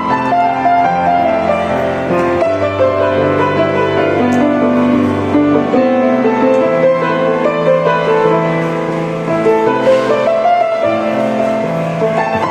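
Background music led by piano, with held notes that change every second or so.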